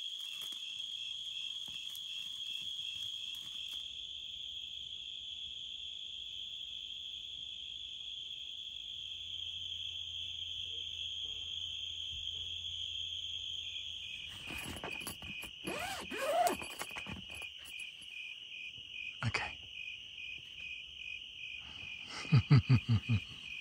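Steady chorus of crickets chirping in a high, pulsing trill. In the second half there are a few short sounds over it, and near the end a quick run of four louder short sounds.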